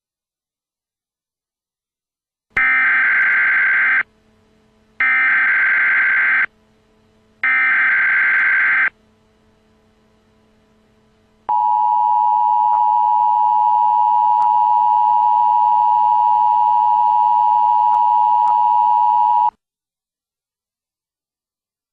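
Emergency Alert System tones: three short, harsh bursts of the digital SAME header about a second apart, then a steady two-tone attention signal lasting about eight seconds before it cuts off.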